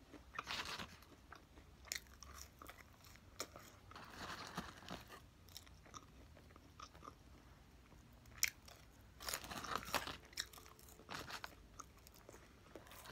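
A person chewing and biting food. The sounds come in irregular bursts with quieter gaps between, loudest about two-thirds of the way through.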